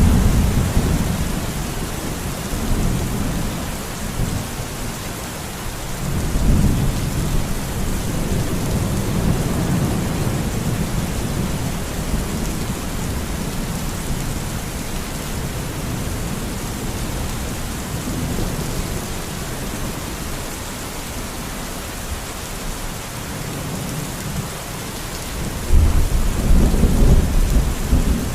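Steady rain falling, with low thunder rumbles that swell near the start, again about six seconds in, and louder near the end.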